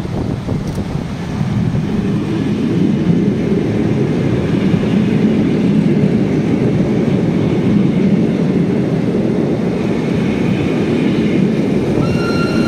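Heritage train of vintage SBB carriages with a BFe 4/4 railcar rolling slowly into the station past the platform, its wheels rumbling on the rails; the rumble builds over the first couple of seconds and holds. Near the end a high-pitched squeal sets in as the train slows.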